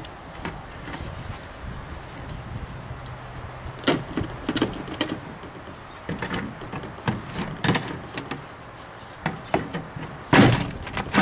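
Round metal sieve knocking and scraping on the rim of a plastic bucket as it is shaken and set back down to strain wet mud. A run of irregular knocks and scrapes starts about four seconds in and gets louder near the end.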